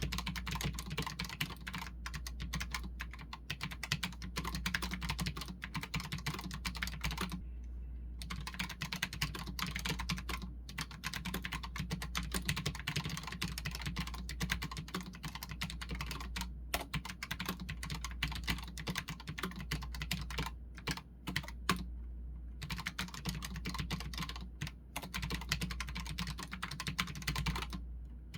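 Continuous fast typing on a Redragon K618 Horus low-profile mechanical keyboard: dense runs of key clicks, broken by short pauses about 7 seconds in, around 21 seconds and near the end.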